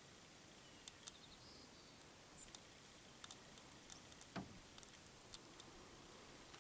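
Near silence with faint hiss, broken by scattered short, sharp clicks and ticks at irregular intervals, some in quick pairs.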